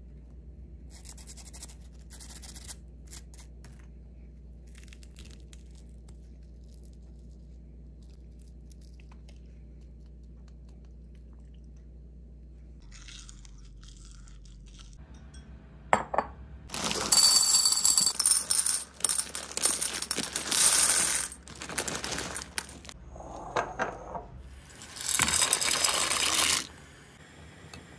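A few faint crisp crackles as pieces of breaded fried pasta are picked up. A little over halfway in come loud clattering, rushing bursts, the last of them dry penne pasta poured into a pan of boiling water.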